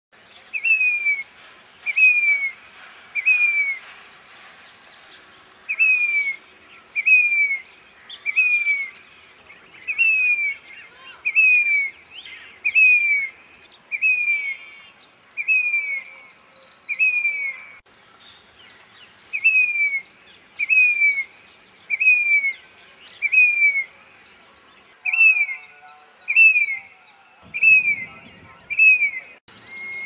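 Grey-bellied cuckoo calling: a high, plaintive whistled "piteeer", each note rising briefly and then sliding down, repeated in runs of three or four with short pauses between runs.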